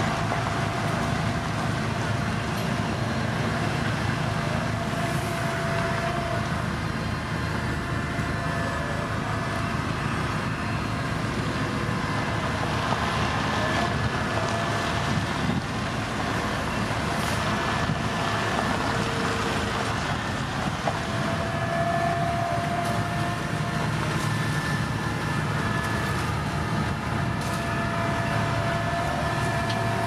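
Heavy road-construction machinery running steadily, with faint high-pitched whines coming and going over the engine noise.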